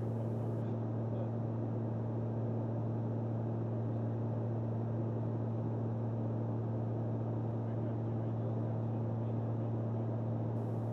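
Steady drone of a Beechcraft King Air 200's twin turboprop engines and propellers in cruise, heard inside the cockpit: an even low hum with a steady deep tone running under it.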